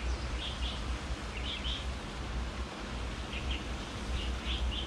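Small birds chirping: short high calls in little clusters of two or three, every second or so, over a steady low rumble.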